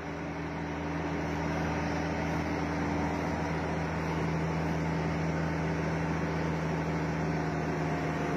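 Heavy machinery's diesel engine running steadily: an even, low drone.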